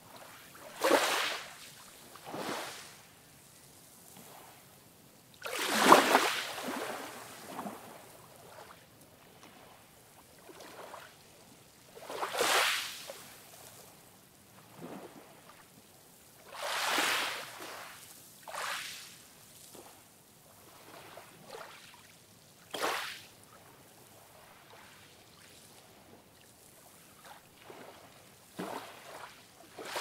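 Small ocean waves breaking and washing up the beach: a soft swish every few seconds, the loudest about six seconds in.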